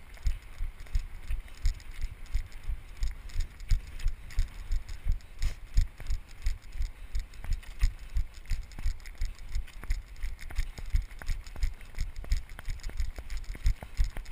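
Running footsteps on snow, a steady run of low thuds about three a second from the stride of the runner carrying the camera, with light crunching on each footfall.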